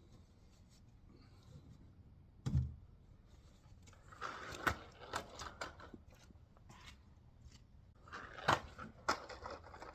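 Metal tools and parts clinking and knocking during hands-on small-engine work. A dull thump comes about two and a half seconds in, then two spells of quick rattling clicks and knocks.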